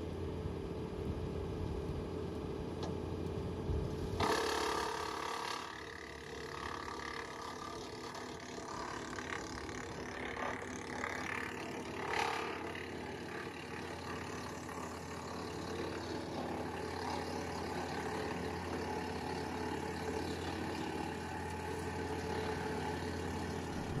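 Tractor-driven Woodland Mills wood chipper running steadily as freshly cut green branches are fed in, with louder surges about four seconds in and again around twelve seconds.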